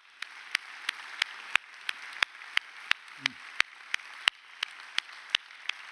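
Congregation applauding, with one man's close-miked hand claps standing out sharply and evenly, about three a second, over the hiss of many hands.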